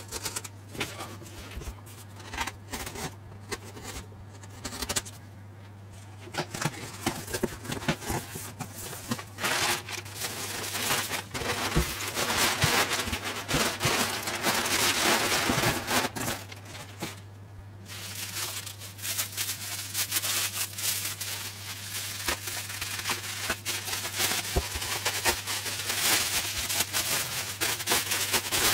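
A cardboard box being slit open with a box cutter, with scattered scraping clicks, followed by crumpled packing paper being pulled out with loud rustling and crinkling, then bubble wrap being handled and crackling near the end.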